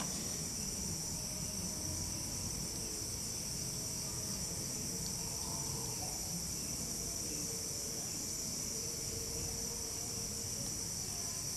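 Steady, high-pitched chirring of insects, unchanging throughout, with faint low rustling beneath.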